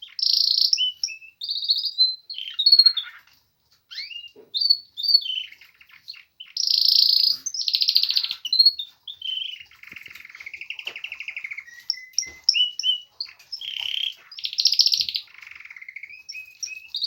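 Domestic canary singing a long, varied song of rapid trills and short whistled notes, with one brief pause about three and a half seconds in. This is its first singing of the spring season.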